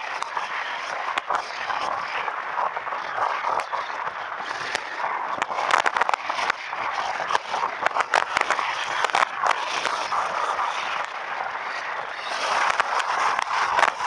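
Wind rushing over an action camera's microphone on a moving bike, a steady hiss with frequent crackling clicks that bunch up about halfway through.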